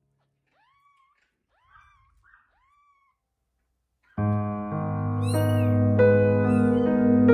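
Newborn kittens mewing: a series of faint, high, rising-and-falling mews. About four seconds in, loud background music starts, and more mews sound over it.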